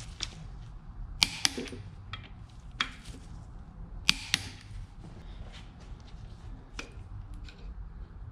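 Torque wrench tightening the connecting rod bolts of a Ford 4.6 modular V8 in stages up to 65 foot-pounds: a few sharp metallic clicks, two of them in quick pairs, with light tool handling between.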